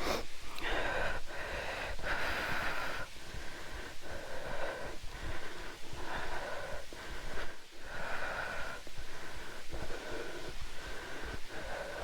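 A hiker breathing heavily from the exertion of a steep climb, a quick, regular rhythm of in-and-out breaths close to the microphone.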